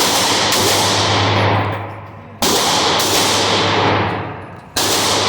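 Gunfire on a shooting range: loud, reverberant shots follow one another, with two sharp fresh shots about two and a half and five seconds in, each after the previous one dies away.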